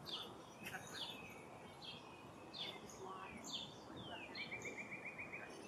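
Songbirds chirping faintly: a string of short, high, downward-sliding chirps, with a rapid even trill of about a second starting about four seconds in, over a low outdoor background hiss.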